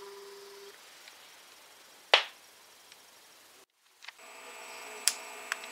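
Steady, buzzy tones with overtones: audio demodulated in the air from a homemade ultrasonic-transducer sound projector's beam. A held tone fades out early, and after a brief gap a denser cluster of steady tones sounds with a few small clicks. A single sharp click about two seconds in is the loudest sound.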